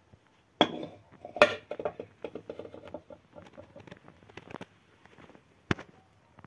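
Handling noises at close range: a sharp knock about half a second in, a louder one near a second and a half, then a run of small clicks and rattles, and one more sharp knock near the end.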